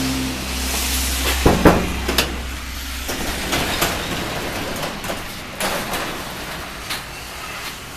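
Sectional garage door lifted by hand: sharp knocks and clunks, then scraping and rattling as it rolls up on its tracks. A steady low hum underneath stops about three seconds in.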